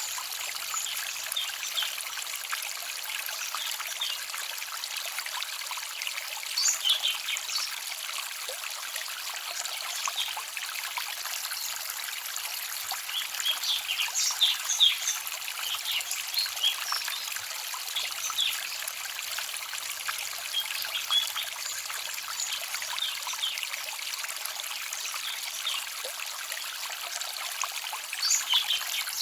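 Small forest stream trickling and babbling steadily, with small birds chirping on and off above it, in a few denser flurries.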